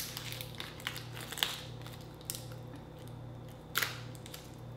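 Shell of a large grilled shrimp being cracked and peeled off by hand: a handful of separate crisp cracks and crackles, the sharpest about a second and a half in and another near the end.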